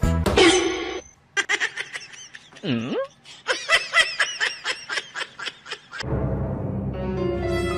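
A person laughing in quick, rapid bursts. About six seconds in, music with steady held tones starts.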